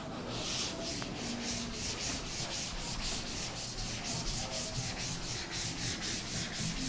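Chalkboard duster wiping chalk off a blackboard in quick, regular back-and-forth strokes: a dry, scratchy rubbing.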